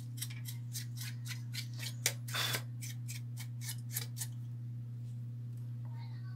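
Small brush scrubbing dust off a motherboard: a quick run of short bristle strokes, about four a second, that stops about four seconds in. A steady low hum runs underneath.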